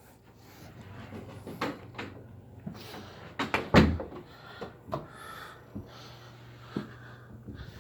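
A series of scattered knocks and clicks, the loudest a heavy thump a little under four seconds in, over a low steady hum.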